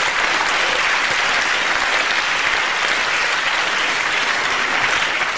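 Audience applauding steadily and loudly.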